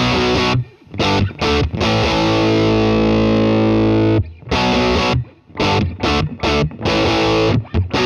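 Distorted electric guitar played through an Analoguetube/Standalone Love Bomb preamp pedal: short chord stabs, a chord held and ringing for about two seconds near the middle, then more clipped stabs. It is played to demonstrate the pedal's low-pass (high-cut) filter.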